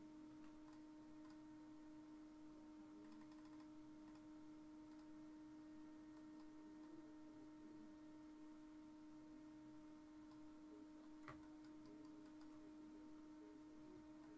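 Near silence: a steady low hum with faint scattered clicks, one a little louder about eleven seconds in.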